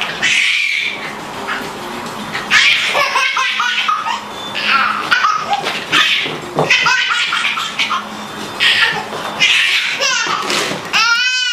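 Baby belly-laughing in repeated fits, with a high squeal of laughter near the end.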